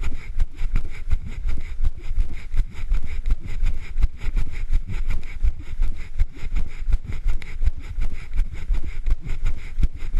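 Running footsteps with the jostling of a handheld camera: a regular low thump about three times a second, over a continuous low rumble.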